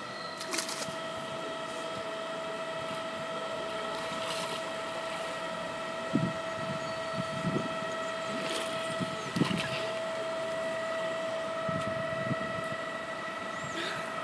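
A steady hum of several held tones runs throughout, with water splashing as a swimmer climbs into a pool and swims. The sharper splashes come about half a second in and again between about six and ten seconds.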